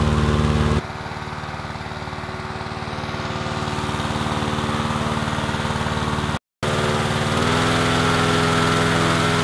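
Engine-driven balloon inflator fan running steadily, blowing cold air into a hot-air balloon envelope to fill it. The sound drops abruptly about a second in, cuts out for a moment about two-thirds through, then comes back louder with the engine note a little higher.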